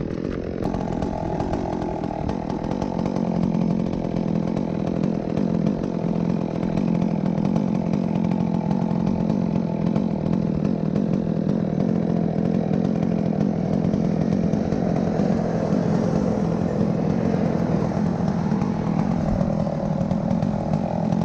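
Chainsaw engine running steadily and continuously, without letting up.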